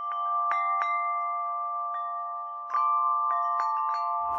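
Intro jingle of bell-like chime tones: a string of soft struck notes, each left ringing so that several tones sound together, a little louder from about two and a half seconds in.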